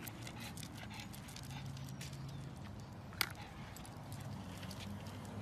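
A pug's claws clicking in a quick patter on pavement as it trots on a leash, with one sharper click about three seconds in.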